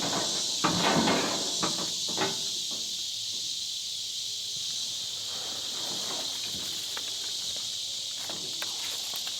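Steady high-pitched drone of insects, with a few light knocks or footsteps in the first two seconds.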